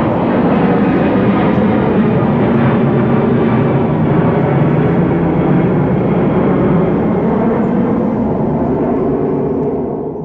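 Jet aircraft engine noise, a loud steady rush that fades away near the end.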